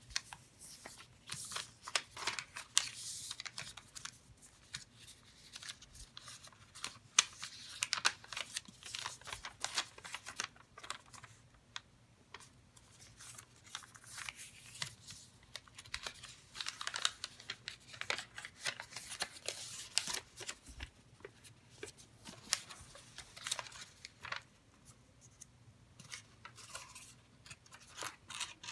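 A sheet of origami paper being folded and creased by hand on a wooden tabletop: irregular rustling, crinkling and short scraping strokes as fingers press and run along the folds, with a few brief pauses.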